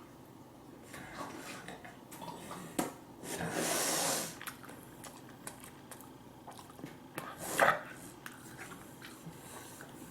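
Tableware handling during a meal: scattered clinks and knocks of dishes and cutlery, a short rushing hiss about three and a half seconds in, and a louder clatter about seven and a half seconds in.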